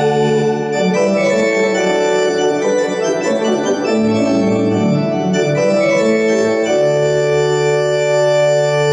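Digital keyboard on an organ voice playing sustained chords, with moving notes in the middle and a long held chord near the end.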